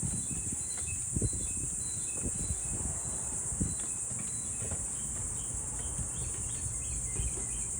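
Insects trilling steadily in a high, unbroken drone, with short bird chirps repeating now and then. Low, uneven rustling with a few soft knocks runs underneath.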